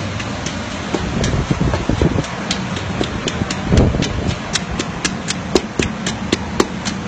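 A pestle pounding papaya salad in a mortar: a run of sharp knocks, about three a second, over a steady rushing background, with a heavier thud about four seconds in.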